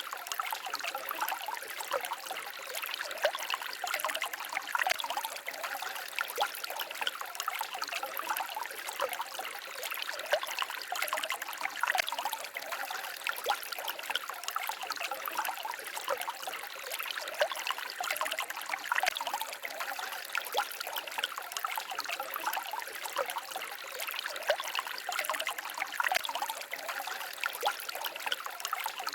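Small forest stream babbling and trickling over stones: a steady flow of water with many small splashes.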